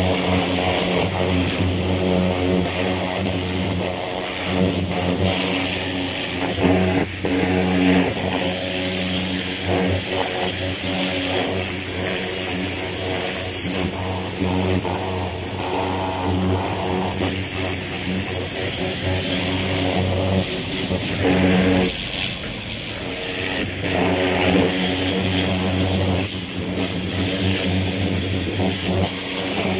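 Pressure washer running steadily, its spray hissing against the mower's deck and wheels, with a brief break in the steady note about two-thirds of the way through.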